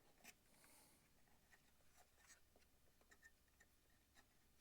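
Near silence, with faint scattered clicks and scratchy rustles of small handling noises.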